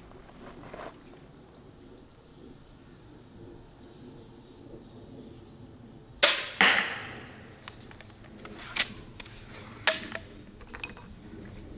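EK Archery Cobra RX Adder pistol crossbow firing a 7.5-inch bolt: one sharp, loud crack of the string, with a second loud crack about half a second later as the bolt strikes a particle-board target. A few sharp clicks follow as the crossbow is worked for the next shot.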